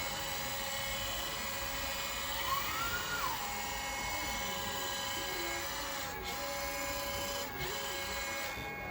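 Hydraulic pump and valves of a LESU 1/14 metal RC excavator (Aoue DX350LC) whining steadily as the upper body slews. One tone rises and falls about two and a half seconds in, and the whine dips briefly twice later on.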